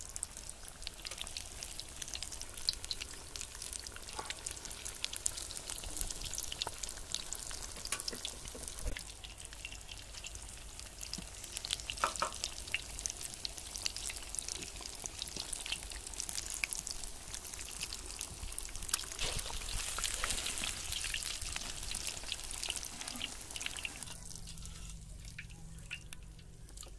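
Batter-coated egg pakoras deep-frying in hot oil in a large kadhai: a steady crackling sizzle with many small pops. It drops away sharply near the end.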